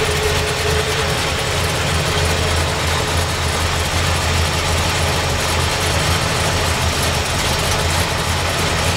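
Chevrolet 396 big-block V8 idling steadily.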